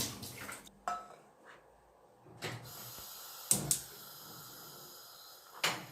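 A few light knocks and clicks of objects being handled and set down, the sharpest pair about halfway through and another near the end, over a faint steady room hum.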